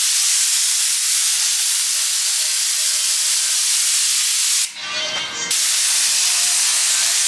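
Hose-fed spray gun spraying headliner adhesive onto a foam headliner board: a steady, loud hiss of air and glue mist, cut off once for under a second about five seconds in as the trigger is let go, then spraying again.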